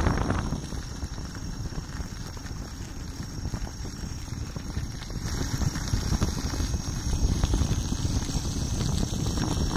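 Gotway MSuper3 electric unicycle's tyre rolling over a gravel path: a low rumble with light crunching, and wind on the microphone. It eases off about half a second in and builds again in the second half.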